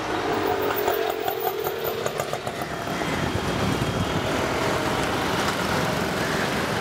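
Busy city street traffic: motorbike and auto-rickshaw engines running steadily in a dense wash of noise.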